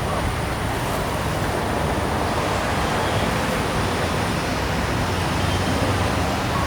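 Steady outdoor ambient noise with a low, traffic-like rumble, heard raw through a Hollyland Lark M2 wireless lavalier mic with no wind muff and its noise cancellation switched off.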